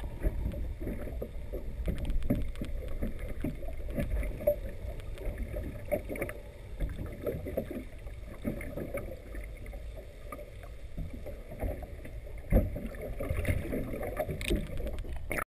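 Muffled underwater noise heard through a waterproof camera housing: a low rumble of moving water with many small knocks and clicks, and one sharper knock about three-quarters of the way through.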